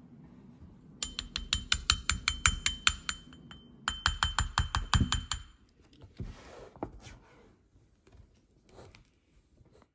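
A small plastic spatula tapped quickly against a hard dish, clinking with a ringing tone in two runs of about six taps a second. It is followed by a few softer knocks and scrapes of the spatula on the frozen ice-cream plate.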